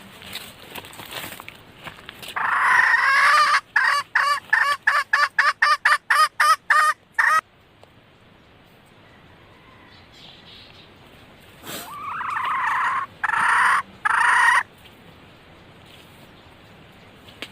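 Female red junglefowl calling: a long drawn note, then a quick run of about a dozen short notes at roughly three a second, and later another long note followed by two shorter ones. This is the hen's call to a male.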